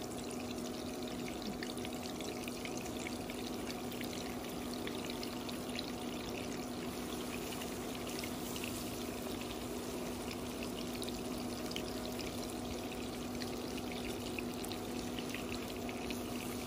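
Melted butter sizzling in a pan: a steady fizzing crackle, with a steady low hum underneath.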